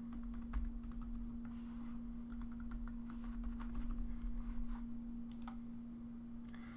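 Computer keyboard typing: an irregular run of key presses as a password is typed into one field and then typed again to confirm it. A steady low hum lies underneath.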